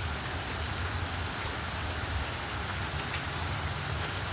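Steady rain falling, with a steady low rumble underneath.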